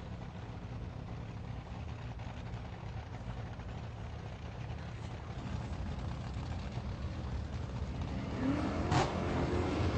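Sports car engine running with a low rumble that slowly grows louder, then revving up with a rising pitch near the end, broken briefly by a sharp click about nine seconds in.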